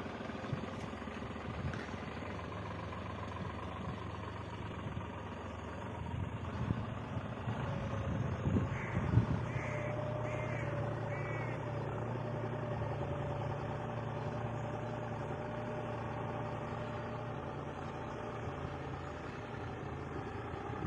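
New Holland 55-56 tractor's diesel engine running steadily, with a bird calling four times in quick succession about halfway through.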